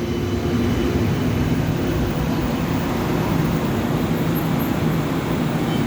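CAF light-rail tram pulling into a station platform: a steady low electric hum over a rumble of wheels and running gear, even in level throughout.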